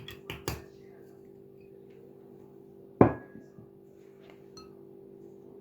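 Glassware handled on a kitchen counter: a few light clicks, then one sharp clink of glass about three seconds in that rings briefly, over a faint steady hum.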